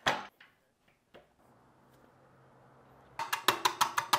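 A sharp knock, then a wood lathe's motor humming faintly as it spins up, and about three seconds in a rapid, even knocking of roughly six or seven strikes a second begins: the turning gouge hitting the high spots of a lopsided willow log blank once per revolution as roughing starts.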